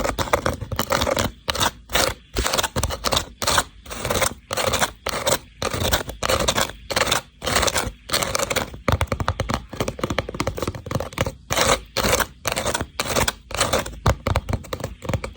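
Scratching and scraping on a woven rattan box in short repeated strokes, broken by brief pauses.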